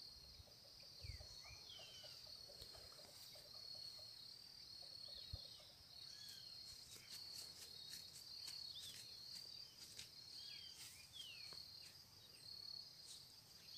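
Near silence: faint, steady high-pitched insect trilling, with scattered short bird chirps over it.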